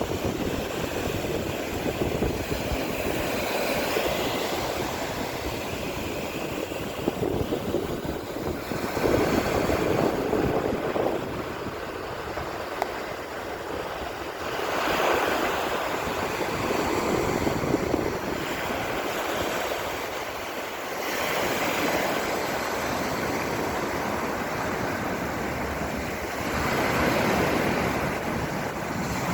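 Sea waves breaking and washing on the shore, the surf swelling every five to six seconds, with wind buffeting the microphone.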